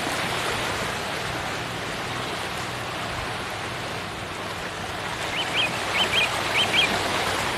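A small bird calling near the end, six short rising chirps in three quick pairs, over a steady rushing noise.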